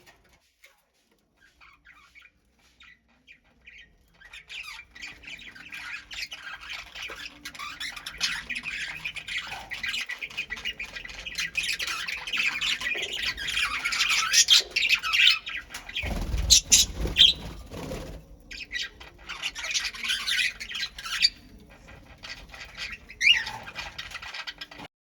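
A colony of pet birds squawking and chattering, many calls overlapping, sparse at first and then dense and continuous. A short burst of low rumbling noise comes about two-thirds of the way through, and the sound cuts off just before the end.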